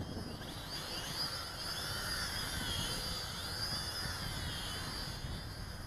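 Small camera quadcopter's electric motors and propellers whining in flight, the pitch of the whine wavering up and down as the motor speeds change with the pilot's stick inputs.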